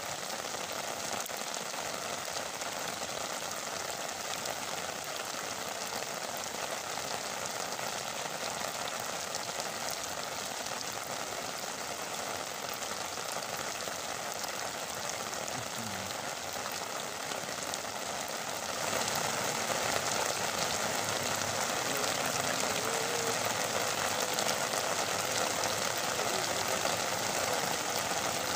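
Heavy rain falling on a pond's surface, a steady hiss that grows louder about two-thirds of the way through as the downpour intensifies.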